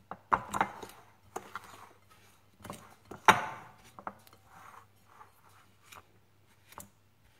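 Metal fork scraping and tapping against a ceramic bowl as it cuts butter into flour for a crumb topping, in irregular strokes. The loudest scrape comes about three seconds in.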